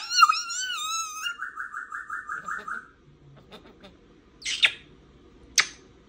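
African grey parrot whistling: a wavering whistle that runs into a warbling trill of about five pulses a second for nearly two seconds, then a few soft clicks and two short, sharp calls near the end.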